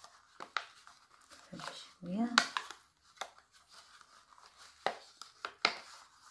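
Thin plastic cup strips crinkling and clicking as hands weave stretchy sock-loop bands through them, in short irregular crackles. A short murmur of a voice comes about two seconds in.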